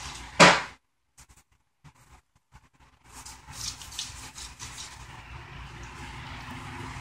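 A short, loud scuffing noise about half a second in, then the sound almost drops out for about two seconds. After that come faint, scratchy strokes of a paintbrush dragged over paper.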